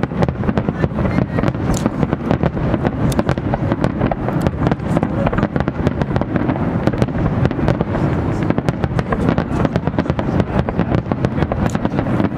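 Starmine fireworks barrage: aerial shells launching and bursting in quick succession. It makes a dense, continuous crackle of many bangs a second over deep booms.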